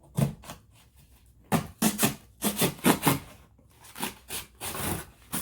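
Milwaukee Fastback folding knife cutting through hard cardboard: a quick, uneven series of short scraping strokes as the blade saws through.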